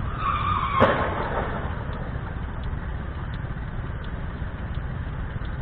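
Motor scooters crashing at a street intersection: a brief high squeal, then a single sharp crash about a second in, over a steady low hum of traffic and engines.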